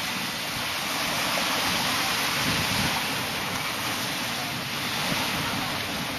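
Steady seaside noise: surf washing on the shore, mixed with wind on the microphone.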